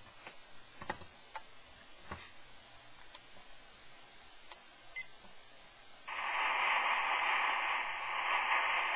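Quiet handling clicks on an Eton Traveler III portable shortwave radio, and a short beep about five seconds in. About a second later the radio's speaker comes on with steady shortwave static and no station coming through.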